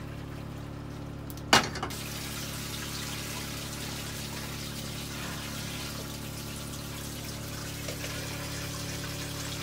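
A sharp clunk about a second and a half in, then water running steadily from a kitchen tap into the sink, over a steady low hum.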